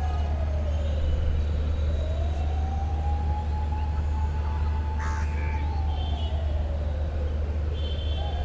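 A siren wailing slowly, its pitch falling and rising back twice, over a steady low rumble of city traffic. There is a sharp click about five seconds in.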